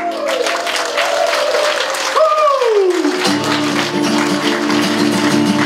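Acoustic guitar strummed in a steady rhythm, as an instrumental break between verses of a sung song, with hand claps throughout. A voice slides down in pitch twice in the first three seconds, before the strumming comes in strongly.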